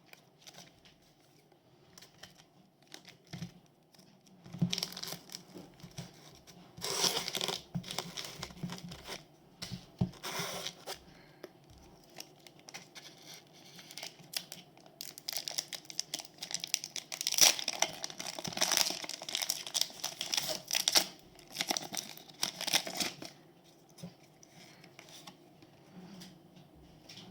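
Foil wrapper of a Pokémon trading card booster pack being torn open and crinkled, in irregular bursts of tearing and rustling that are loudest about two-thirds of the way through.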